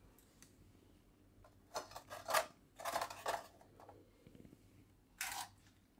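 Crisp wheat-flour papads being handled and set down on a plate: a few short, dry scraping rustles, two close together around the second and third seconds and a brief one just after five seconds.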